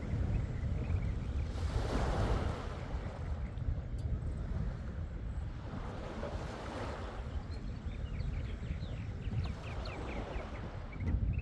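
Waves washing onto a sandy lake shore, swelling and falling back about every four seconds, with wind buffeting the microphone in a steady low rumble.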